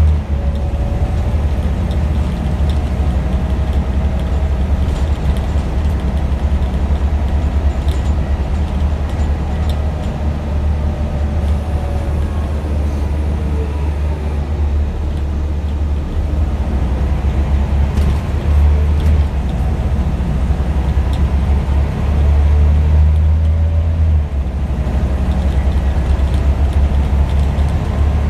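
Scania OmniDekka double-decker bus's diesel engine being driven hard, heard from inside the passenger saloon. It is a loud, steady low drone, with a fainter whine that rises and falls in pitch over and over.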